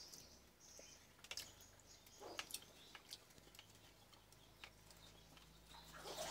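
Near silence, with a few faint clicks of eating: a man chewing and picking at roasted mackerel on a plate with his fingers.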